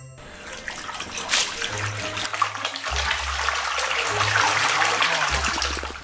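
Water sloshing and splashing in a shallow tub as a toy car is swished through it and washed by hand.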